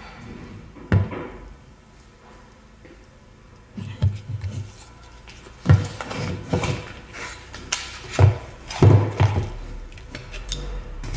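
A cardboard box being handled on a wooden tabletop: one knock about a second in as it is set down, then from about four seconds on a run of uneven taps, knocks and rustles as the flap is opened and the grinder is slid out.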